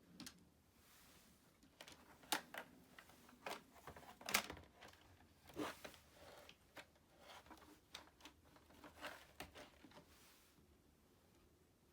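Irregular clicks and light knocks of hands handling plastic parts of a Roomba robot vacuum during repair, with the loudest clicks about two and a half and four and a half seconds in.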